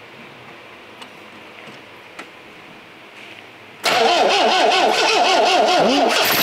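Starter motor cranking the MGB GT's four-cylinder B-series engine from cold with the choke on, starting suddenly about four seconds in. The pitch rises and falls with each compression, about three or four times a second, slow cranking on a battery that is a little low.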